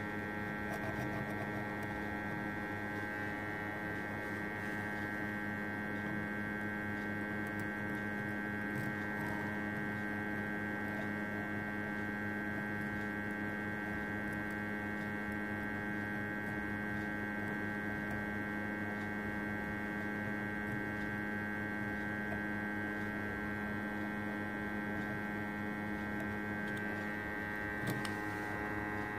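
Steady electric hum with many overtones from a hot air rework station blowing on a phone board, softening the underfill paste around the eMMC chip so it can be scraped off. A brief click comes near the end.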